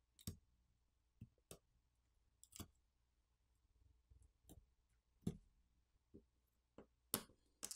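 Light, sparse clicks and taps of metal tweezers on a disassembled tablet's small internal parts and frame, about ten at uneven intervals.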